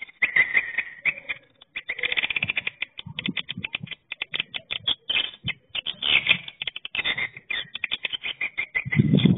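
Swiftlet call played from a rooftop tweeter speaker: a fast, continuous stream of dry clicks and twittering chirps, the lure sound used to draw swiftlets to a nesting house. A low rumble comes in near the end.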